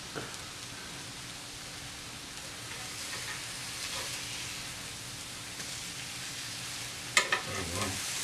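Beef burger patties frying in their grease, a steady sizzling hiss. A short burst of voice breaks in near the end.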